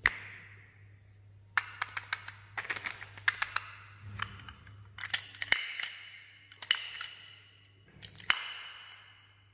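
Hard plastic candy toys being handled: short clusters of clicks and taps, then sharp snaps, one near the end as the flaps of a pop-up lollipop's plastic case are opened, some with a brief high squeak.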